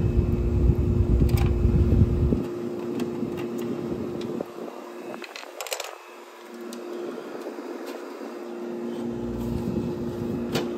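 Gibson window air conditioner running on cool: a steady hum from its compressor and fan, with rushing air on the microphone for the first couple of seconds that then drops away. A few sharp clicks come through the hum.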